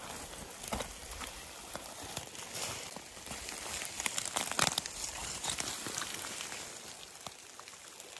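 Crawling on hands and knees over dry seaweed and beach debris: a continuous crunching and crackling of the matted wrack under hands, knees and boots, with a louder cluster of crunches a little past four and a half seconds in.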